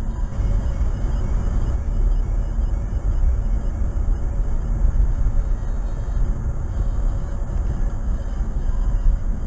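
Steady low rumble of a car driving at about 37 mph: engine and tyre noise heard inside the cabin through a dash cam's microphone.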